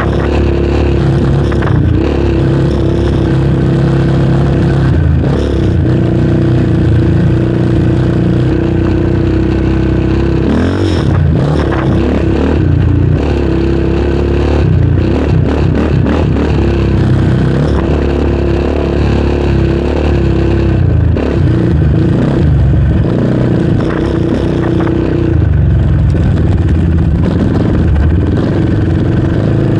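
Yamaha Raptor 700R sport quad's single-cylinder four-stroke engine running under throttle. Its pitch dips and climbs with throttle and gear changes about ten seconds in and again near the end, over scattered knocks and rattles from the machine on the rutted trail.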